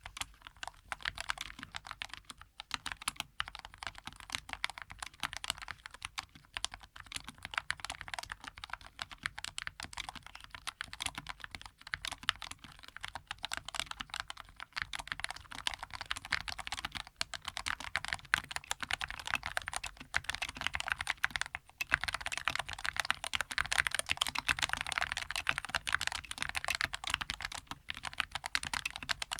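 Fast, continuous typing on a Skyloong SK61S keyboard with Gateron Yellow linear switches. It starts on square typewriter-style keycaps, which are swapped for the stock keycaps partway through.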